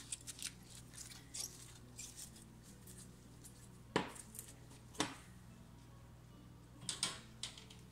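Wet, freshly washed rice sliding and pattering from a bowl into a metal baking pan, with small clicks and rustles. Two sharp knocks come about a second apart near the middle, and a few lighter clicks near the end.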